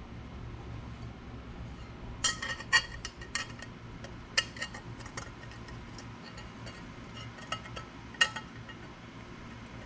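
Light metallic clinks and ticks, a few at a time and irregular, over a steady low hum.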